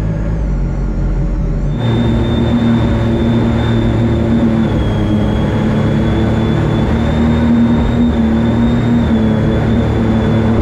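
Supercharged mini jet boat's engine running under way. About two seconds in it opens up and the sound fills out, settling into a steady run at speed with a high whine over the engine and water rushing past the hull.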